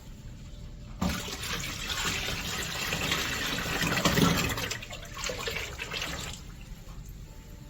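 Water running from a tap, turned on about a second in and shut off about six seconds in.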